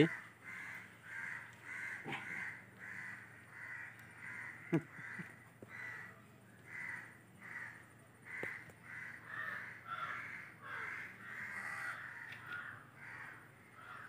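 Crows cawing over and over, about two calls a second. A few sharp knocks break in, the loudest just under five seconds in.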